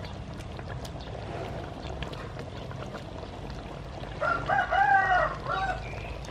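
A rooster crowing once, about four seconds in: a loud call of under two seconds whose pitch rises and then falls. Before it, faint soft knocks of potato chunks being dropped into the pot of simmering curry.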